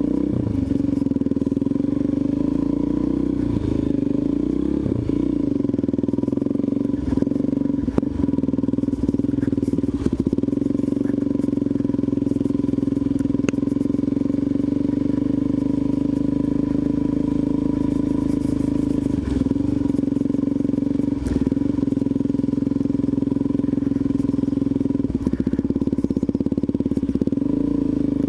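Supermoto motorcycle engine running at a fairly steady low speed with small rises and dips in pitch, and a few sharp knocks and clatters from the bike over the rough, snowy ground.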